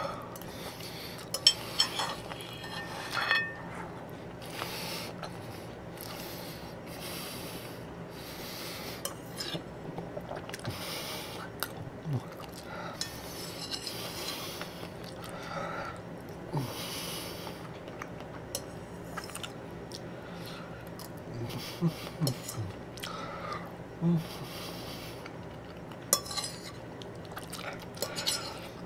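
Metal fork clinking and scraping against a plate, with close-up chewing and mouth sounds between bites.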